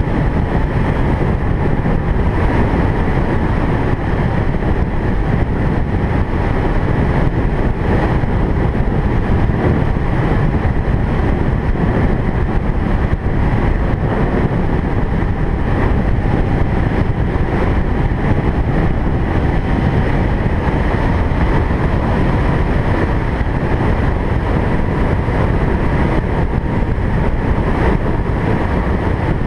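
Steady road noise of a car driving: low tyre and engine rumble with wind.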